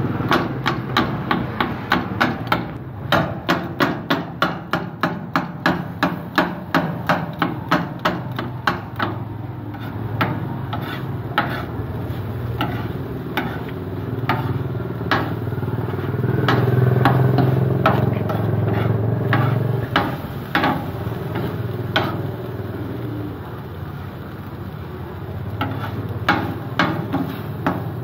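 Metal scraper and knife chopping shawarma meat on a steel flat-top griddle: quick metallic clanks, two or three a second for the first ten seconds, then sparser strikes. Under them runs a steady low hum that swells for a few seconds past the middle.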